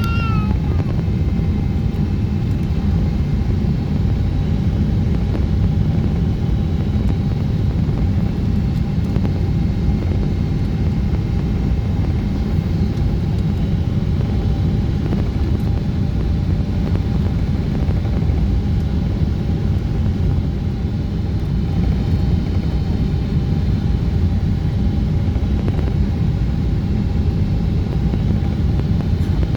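Steady cabin noise of a Boeing 777-200ER on its descent: a deep, even rush of airflow and engine sound with faint steady tones above it. A short warbling tone sounds right at the start.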